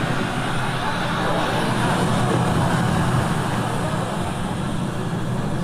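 Steady rush of surf from waves on a beach, with no distinct breaks or crashes.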